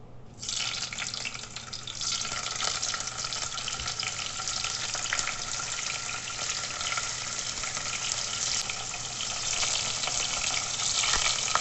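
Paneer cubes sizzling and crackling in hot ghee in a kadhai. The sizzle starts suddenly as the first cubes go in and grows fuller about two seconds in as more are added, then carries on steadily as they fry.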